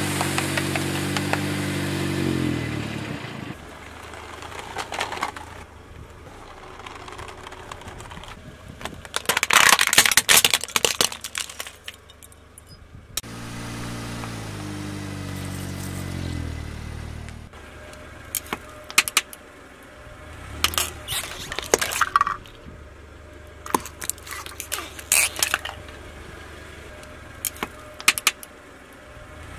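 A car's engine runs as the car creeps forward, its pitch dropping, while the tyre rolls onto and crushes a block of dry floral foam with a dense crackling crunch. The engine comes in again for the next run, followed by a series of scattered sharp cracks and clicks.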